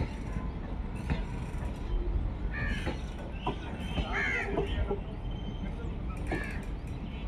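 Crows cawing a few times, from about two and a half seconds in, over a steady low rumble from a train of coaches rolling slowly past.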